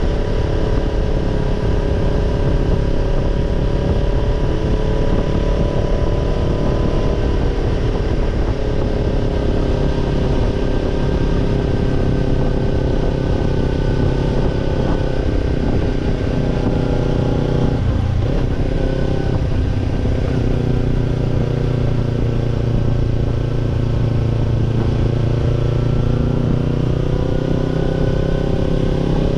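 Kawasaki Ninja 250 parallel-twin exhaust note through a BEET NASSERT Evolution Type II titanium slip-on muffler, running steadily on the move. There is a brief dip and recovery in the engine note about two-thirds of the way through.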